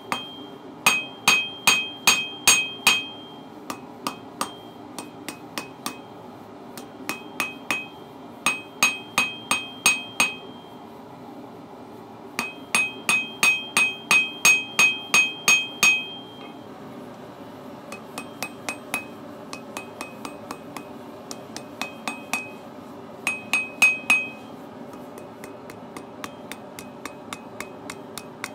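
Hand hammer striking hot steel on a 30 kg steel anvil while forging a hook. The blows come in runs of about three a second, each one ringing brightly, with lighter taps in the pauses between runs.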